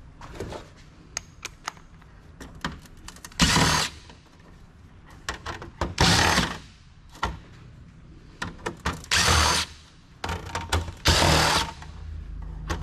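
A cordless driver fitted with a 1/4 inch socket running in four short bursts, about half a second each, as it backs screws out of a computer's motherboard plate and heatsink bracket, with clicks and knocks of handling the tool and metal chassis between.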